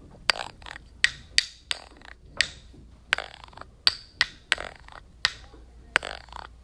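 Sharp percussive clicks or snaps, each with a short ringing tail, about a dozen in an uneven rhythm.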